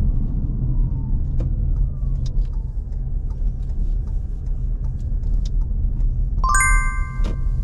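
Car driving slowly, heard from inside the cabin: a steady low rumble of engine and road noise with a few faint clicks. Near the end a bright bell-like chime of several tones rings out for about a second.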